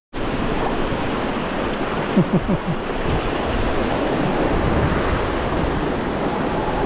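River rapids rushing: a steady noise of fast-flowing white water, with a brief voice about two seconds in.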